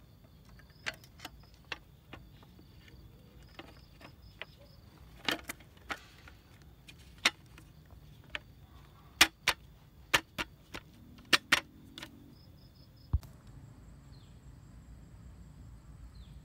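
Sharp, irregular clicks and clacks of a folding camping table being assembled, its metal frame and slatted top knocking and snapping into place. Insects chirp faintly behind; after a low thump about thirteen seconds in, the clicking stops and a thin, high insect drone goes on.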